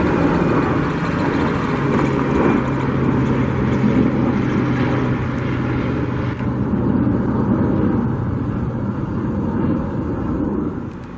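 Steady vehicle noise: a low engine hum held for most of the stretch over a loud, even rushing sound.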